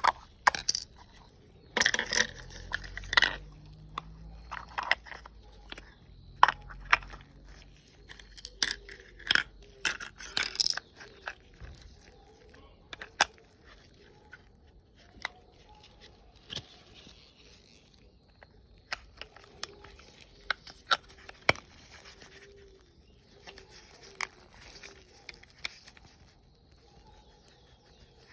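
Hamburger being made by hand: a string of sharp taps, clicks, crinkles and scrapes, dense and loud for the first eleven seconds or so, then sparser and quieter.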